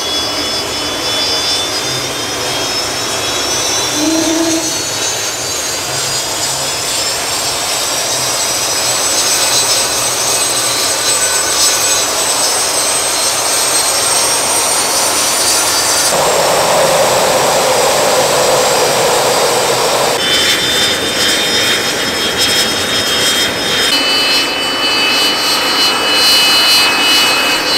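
GTD-350 gas turbine engine, run with its free turbine removed, running loud with a high-pitched whine. The whine rises in pitch over the first half, then holds steady. About halfway through, a rush of noise swells over the engine for a few seconds. The engine runs much louder without its free turbine.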